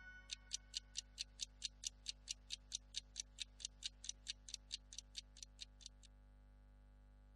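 Clock-like ticking in the dance's backing track, about five quick, sharp ticks a second, growing fainter and stopping about six seconds in. A faint steady hum is left after it.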